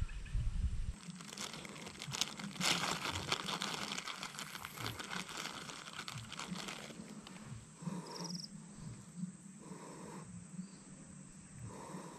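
Close rustling and crackling of handling and plant stems near the microphone, densest in the first half and quieter from about seven seconds in, with a few short separate sounds.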